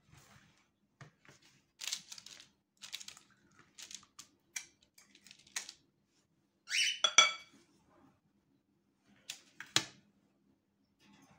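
Metal spring-lever ice cream scoop scraping through cookie dough against a glass bowl in a run of short scrapes. About seven seconds in there is a louder metallic ringing squeak, and a sharp click comes near the end as the scoop works.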